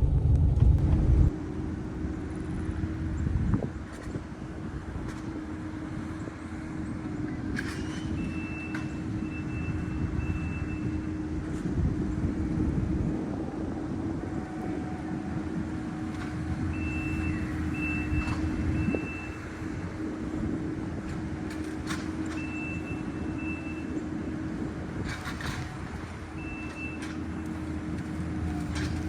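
A heavy machine's engine running steadily, with a high-pitched reversing alarm beeping in four short spells as it backs up.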